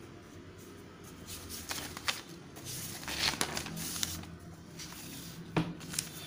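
Paper rustling and scraping as the written sheet is shifted under the camera, with a few light knocks from the handling near the end.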